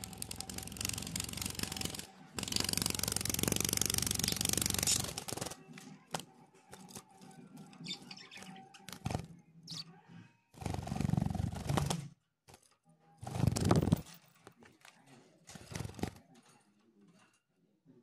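Budgerigar flapping its wings hard while gripping a perch: bursts of rapid wingbeats, the longest lasting about three seconds near the start, followed by several shorter bursts.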